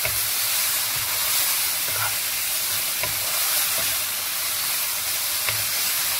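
Marinated chicken strips sizzling steadily in oil in a pan over low heat, with a wooden spatula stirring them and now and then clicking against the pan.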